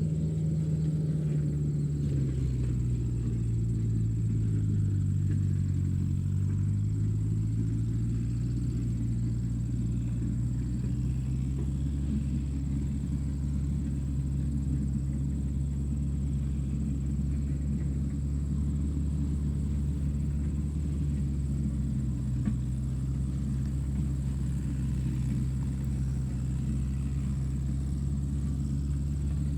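Low, steady engine drone that drops in pitch a couple of seconds in, then rises back and holds steady.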